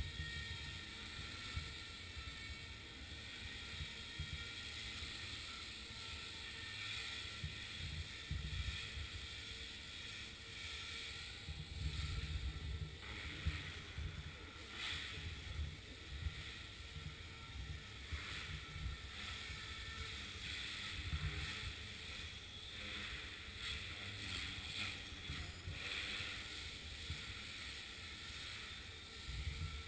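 Radio-controlled model helicopter in flight: a steady high whine from its motor and rotor, with a low rumble underneath that swells and fades.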